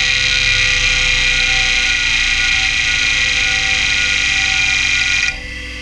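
Quantum Bigfoot CY 3240AT 5.25-inch hard drive's head actuator seeking back and forth without pause during a seek-time benchmark, a loud, dense, steady chatter that stops abruptly about five seconds in and leaves the quieter 3600 rpm spindle running. The owner describes the drive as on its last legs.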